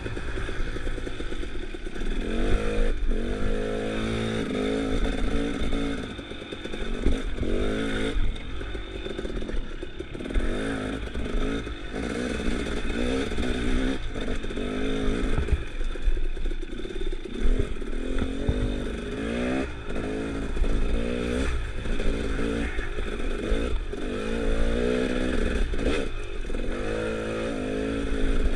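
Dirt bike engine revving up and falling back over and over as the throttle is worked through a rocky trail section. Scattered knocks and clatter from the bike hitting rocks and roots.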